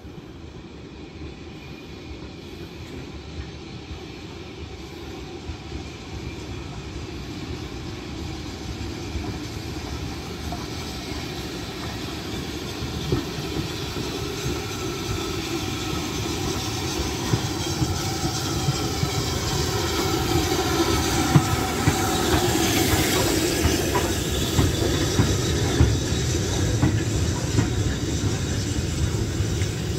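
Steam locomotive and its train of coaches approaching and rolling past, growing steadily louder over the first twenty seconds. In the later part the wheels click over the rail joints, with a hiss of steam.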